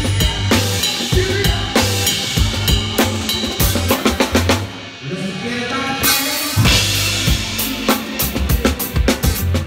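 Funk drum kit played close up under the band: a tight groove of kick, snare and cymbals. About four and a half seconds in the drums stop for roughly a second and a half, then come back in, first with cymbals and then the full groove.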